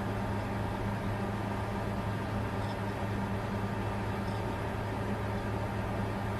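Bitcoin mining computer running steadily: an even rush of air from its cooling fans over a constant low hum.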